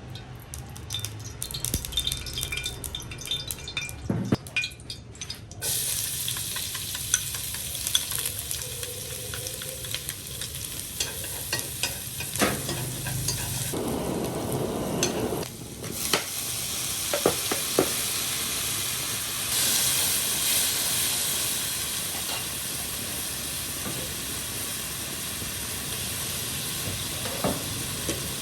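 Food sizzling in hot oil in a pan, with a utensil knocking and scraping against it as it is stirred. The sizzle sets in about six seconds in, after a few scattered clicks.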